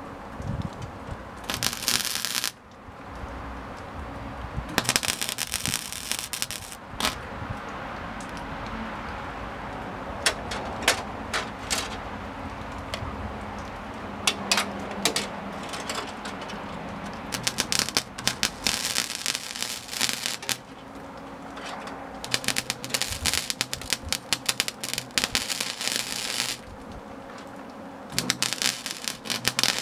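MIG welder arc crackling in repeated short bursts, a second or two each with sharp pops between, as patch panels are stitch-welded into sheet-steel tailgate.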